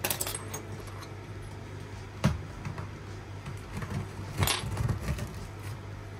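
Engraved metal keychain tags clicking against each other and clacking on a laminate floor as they are picked up and handled: single sharp clicks at the start, about two seconds in and about four and a half seconds in, the last followed by a quick run of softer knocks.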